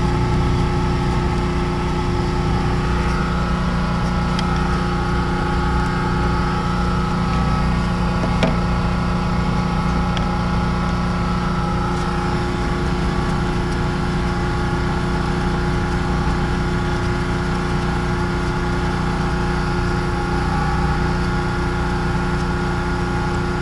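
Steady engine hum like an idling motor, even in pitch and level throughout, with a few faint clicks as the Phillips screws are worked out of the wheel-well splash shield.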